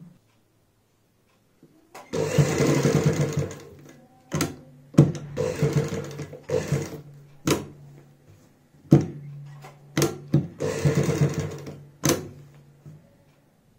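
Electric sewing machine stitching in three short runs of a second or two each, stopping between them as the fabric is turned along the curve of the neckline. Sharp clicks come between the runs, and a low steady hum carries on in the pauses.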